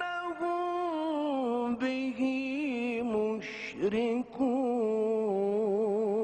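Solo male Quran recitation in melodic tajwid style: one voice holding long sung notes that slide lower, with a brief hissed consonant about three and a half seconds in and quick wavering ornaments near the end.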